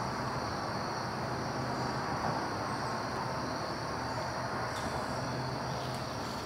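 Steady outdoor background: a low, even rumble like distant traffic under a thin, steady high drone, with a couple of faint ticks near the end.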